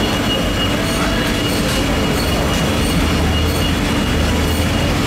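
Steady, loud mechanical background noise: a continuous rumble with a constant low hum and thin high whines that never let up.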